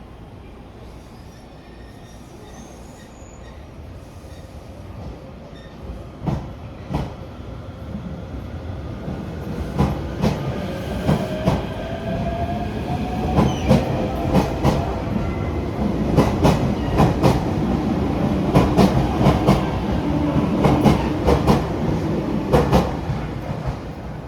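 Electric train pulling out along the platform, getting steadily louder. Its wheels click over the rail joints and points, more and more often, with a faint rising motor whine as it picks up speed.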